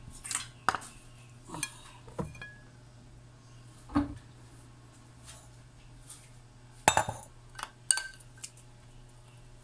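Dishes and utensils clinking and knocking on a granite countertop: a metal spoon in a ceramic bowl and a glass mixing bowl being handled, with scattered single clinks and a louder clatter about seven seconds in. A low steady hum runs underneath.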